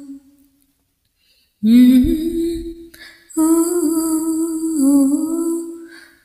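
A voice humming a slow melody without words: after about a second and a half of silence, two long held phrases.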